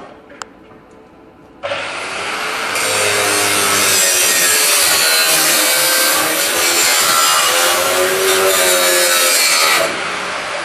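A handheld power tool cutting, its motor pitch dipping and recovering as it bites. It starts about two seconds in, gets louder a second later, and cuts off abruptly near the end.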